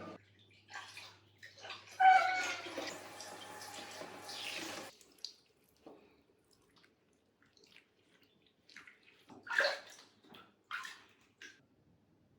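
Bathwater sloshing in a tub around a bathing cat. A short, falling meow comes about two seconds in, and a few small splashes follow near the end.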